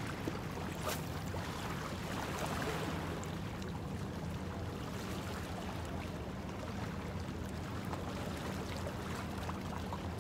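Steady low drone of a motorboat engine out on the water, over a hiss of wind and water.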